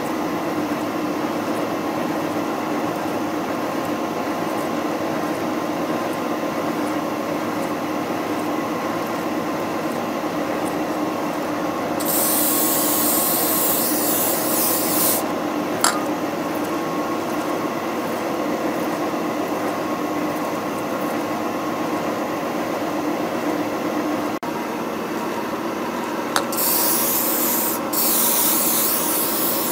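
Schaublin SV52 milling machine face-milling cast aluminium under slow power feed: a steady running whine of spindle and feed drive with the scraping of the cutter. Two loud hissing bursts cut in, one about twelve seconds in lasting about three seconds and one near the end, from an air blast clearing the chips.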